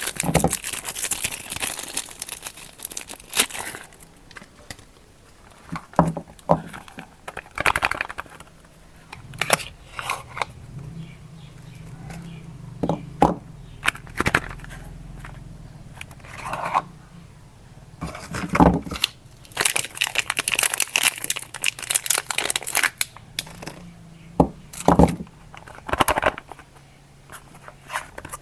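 Soap wrappers being torn open and crinkled by hand as bars of soap are unpacked: irregular rustling and crackling with sharp ripping and clicking sounds throughout.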